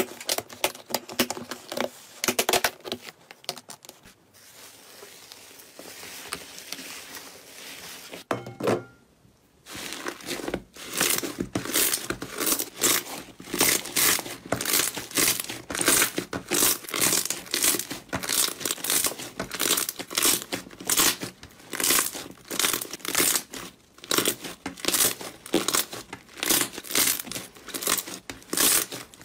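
Slime being squeezed and kneaded by hand, crackling and popping. After a short break about eight seconds in, it turns into a steady run of crackles at roughly two or three a second.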